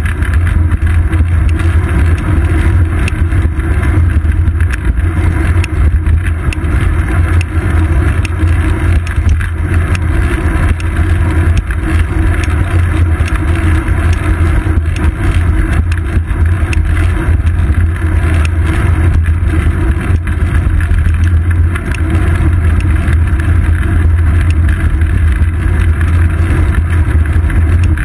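Steady loud low rumble of a road bike in motion, picked up by a seat-post-mounted GoPro Hero 2: wind over the camera and tyre-on-road vibration carried up through the frame.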